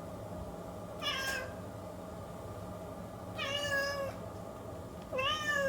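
Domestic cat meowing three times, each meow short and falling in pitch.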